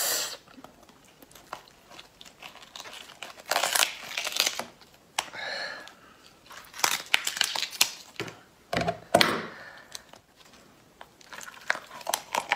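Raw lobster shell crackling and tearing as it is cut with scissors and pulled apart by hand, in irregular bursts of snapping and crinkling.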